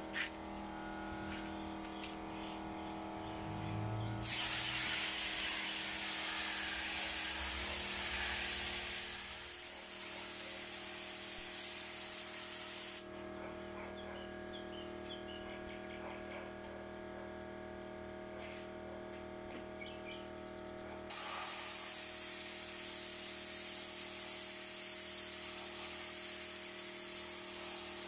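Compressed-air spray gun spraying in two long bursts of steady hiss. The first starts about four seconds in and cuts off near thirteen seconds; the second starts again around twenty-one seconds.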